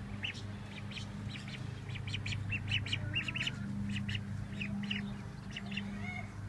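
Ducklings peeping: a run of short, high chirps, several a second, over a steady low hum.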